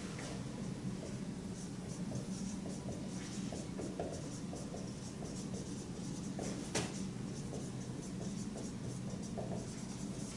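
Dry-erase marker squeaking and scratching on a whiteboard in many short strokes as a line of text is written, over a steady low hum. One sharp tap comes about two-thirds of the way through.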